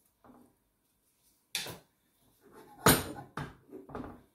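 Kitchenware knocking and clattering as a wooden spoon is worked in a pot of rice: a few sharp knocks, the loudest about three seconds in, with quiet between them.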